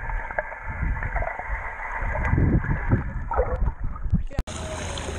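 Muffled underwater sound of a swimming pool, heard through a camera held below the surface: low swishing and gurgling of water stirred by a swimmer's arm strokes, with faint bubble clicks. About four seconds in the camera breaks the surface, and open-air splashing replaces the muffled sound.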